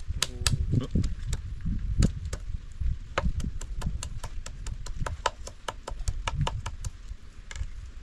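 Knife chopping food on a wooden board: a quick, even run of sharp chops, several a second.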